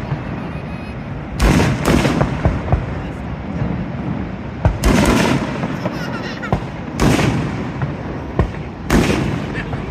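Fireworks shells bursting overhead: a series of loud booms a second or two apart, each followed by a rumbling echo, over a steady background hiss.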